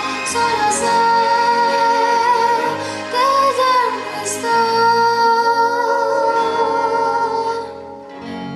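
Children's and teenagers' choir singing a slow ballad in long held notes, over instrumental accompaniment. The voices drop away shortly before the end.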